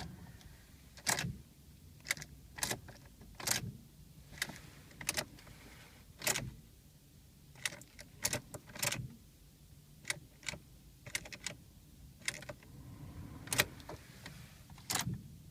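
Repeated sharp clicks of a car ignition key being turned and released, with keys jangling on the ring and no starter or cranking sound: the 2012 Ford Focus SE's engine will not turn over. The fault was later traced to the transmission control module. A faint steady hum runs underneath.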